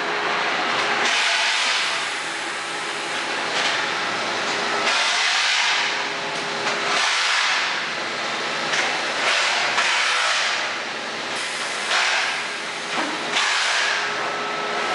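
Turbo-Disc disc-filter pods backflushing in sequence: a loud, continuous rushing hiss of water and air. The hiss shifts every two to four seconds as the flush passes from pod to pod.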